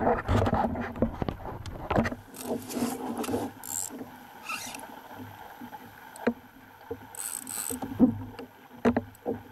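A spinning reel and rod being handled on a kayak: scattered clicks and knocks of the reel, with a few brief hisses. Wind and water noise is loud for about the first two seconds, then drops away.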